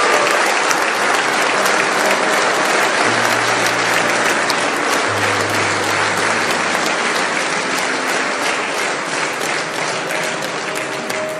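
Large audience applauding steadily, with background music tones underneath; the clapping dies down near the end.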